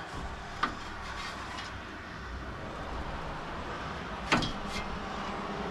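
Steady rumble of highway traffic passing the shop, with a small click just after the start and a sharper metal clink about four seconds in.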